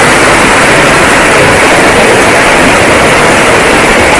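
Heavy rain pouring steadily, a loud, even hiss.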